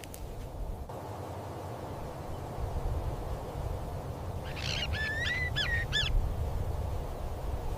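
A bird calls once, a quick run of high chirping notes with short pitch glides lasting about a second and a half, past the middle, over a steady low rumble of background noise.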